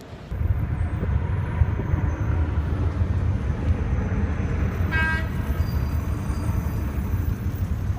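Loud low rumble that starts abruptly just after the beginning, with a short horn toot about five seconds in.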